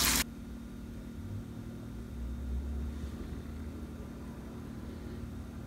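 Frying tofu sizzling in a pan, cut off abruptly a moment in, then a low steady background hum.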